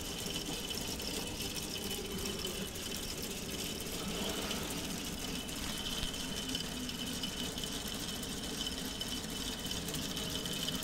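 K'Nex model V8 engine running, its motor turning the plastic crankshaft, timing gears, cams and pistons with a steady whirring and a thin high whine.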